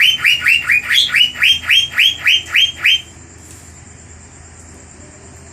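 Asian fairy-bluebird (cucak biru) calling: a fast run of about a dozen loud, sharp repeated notes, roughly four a second. The notes stop about three seconds in, leaving a steady background hiss.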